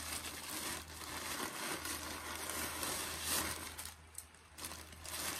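Clear plastic packaging bag crinkling and rustling as it is handled and pulled open, easing off briefly near the end.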